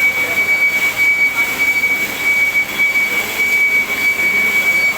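Lathe machine cutting a square thread on a stainless steel shaft: a steady high-pitched whine over even machining noise.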